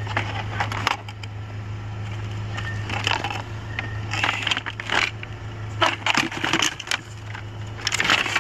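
Skis and ski poles clattering and knocking together in several bursts as they are picked up and shifted by hand, over a steady low hum.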